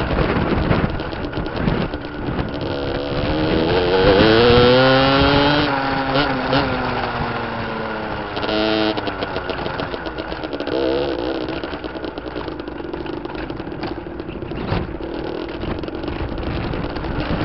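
Beta RRT 50 enduro motorcycle's small two-stroke engine revving up and down while riding. The pitch climbs to its loudest about four to five seconds in, falls away, rises briefly again near the middle, then runs lower and rougher.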